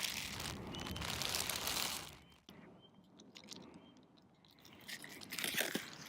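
Thin paper wrapping crinkling and rustling as it is handled, loudest for about the first two seconds, then softer scattered crackles that pick up again near the end.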